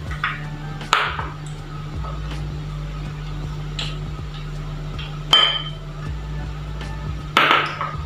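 Small glass bowls knocking and clinking against a larger glass bowl three times as sesame seeds and cornflour are tipped out of them; the middle knock rings briefly. A steady low hum runs underneath.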